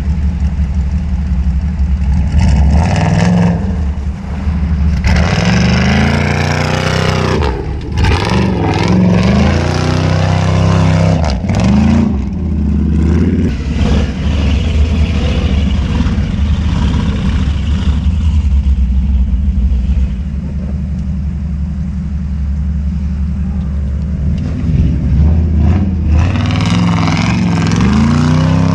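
Off-road truck engine revving up and down repeatedly as it tries to climb a hill, over another engine idling steadily close by. The revving comes in a long run of rising and falling surges early on and again near the end.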